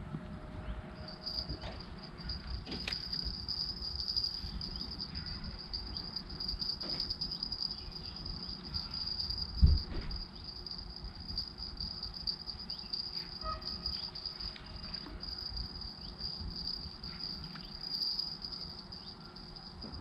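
Crickets chirring steadily at a high pitch from about a second in, over a low rumble. One dull thump about ten seconds in.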